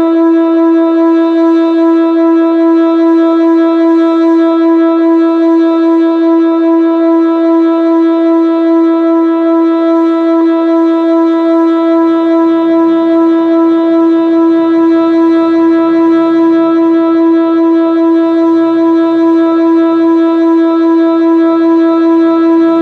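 Whelen WPS-2906 electronic outdoor warning siren sounding one steady, unwavering tone, the kind used for its audible test.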